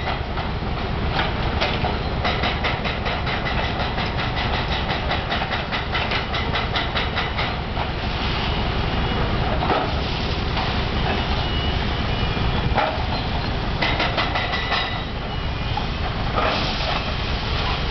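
Heavy machinery running: a steady engine rumble with a rapid, regular metallic clatter of about seven clicks a second through the first half, then irregular clanks and scrapes.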